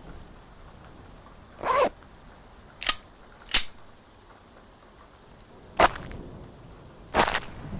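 A handful of separate sharp clicks and knocks, about five over several seconds, the first with a brief creaking, wavering tone, over a low steady hiss.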